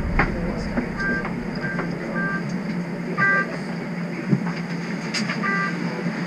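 Steady low hum of a stationary streetcar heard from inside, with short electronic beeps, each a chord of three tones, coming irregularly about six times.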